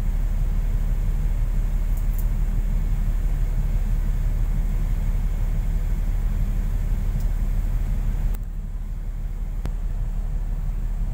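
Steady low rumble of wind buffeting the microphone on a ship's open deck. It drops slightly and changes character abruptly about eight seconds in, at a cut.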